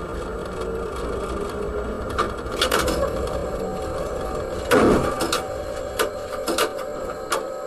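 Tram running along its rails, heard from the driver's cab: a steady rolling rumble with rattles and sharp knocks. A louder thud comes about five seconds in.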